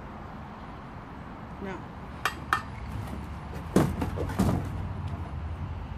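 Grill pedestal pieces knocking and clicking as they are handled and pushed together: two sharp clicks about two seconds in, then heavier clunks around four seconds in.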